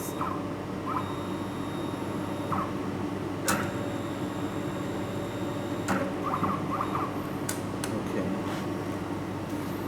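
Laser welding machine running with a steady electrical hum. Over it come a few sharp clicks and short whirs from its motorised axes being jogged with the control stick.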